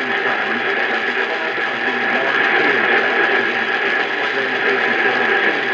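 Music with guitar playing over a radio broadcast, muffled under steady static hiss.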